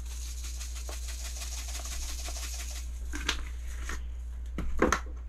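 Garlic salt shaken from a plastic shaker into a bowl of flour: a fine rattling hiss of salt grains pouring through the shaker holes, stopping about four seconds in. A couple of light knocks follow near the end.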